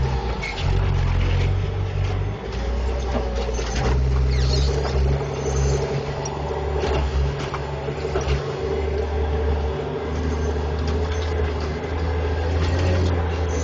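John Deere 540E log skidder's diesel engine running under changing load, heard from inside the cab, its low note shifting several times. Short clanks and rattles come and go over it.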